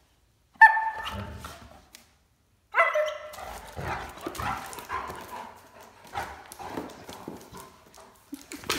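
Great Danes at play: a sharp bark just after half a second in and another just before three seconds in, then irregular scuffling with claws clicking on the floor as they wrestle.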